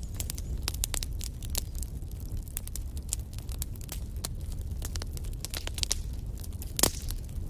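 Wood fire burning in a fireplace: a steady low rumble of flames under many quick crackles and small pops, with one louder pop near the end.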